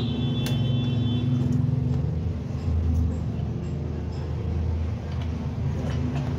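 Low engine rumble of a running motor vehicle that drops in pitch about halfway through, with a high steady tone during the first second and a half and a few faint clicks.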